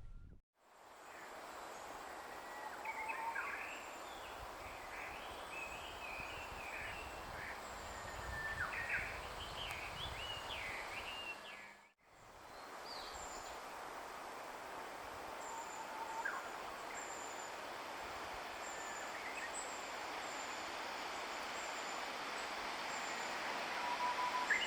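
Wild birds calling, with scattered short chirps and warbling notes over a steady outdoor background hiss. The sound drops out briefly near the middle, and a row of thin, very high repeated notes runs through the second half.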